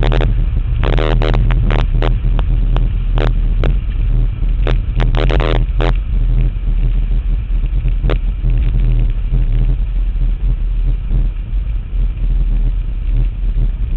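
Pontiac Firebird's engine heard through a microphone mounted on the car's body beside the front wheel: a steady low engine drone under heavy wind rumble, with sharp crackles and pops through the first half that then thin out.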